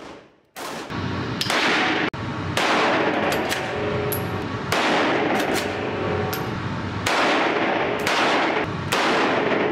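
Rifle shots at an indoor shooting range, several in a row, one every second or two, each with a long echo off the concrete walls.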